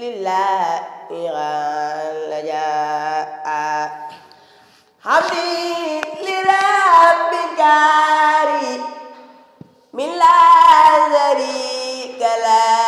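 A voice chanting an Arabic khassida, a devotional sung poem, in long held, wavering melodic lines with two short pauses, about four and nine seconds in.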